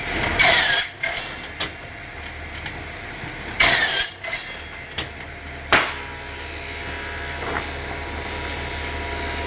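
Woodworking machinery running with a steady low hum, broken by two loud hissing bursts, one near the start and one a few seconds later, and several sharp knocks in between.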